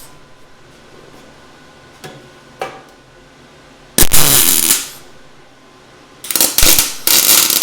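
MIG welder laying plug welds in 18-gauge sheet steel: a short welding burst about four seconds in, then two or three more in quick succession near the end, with a couple of faint clicks in between.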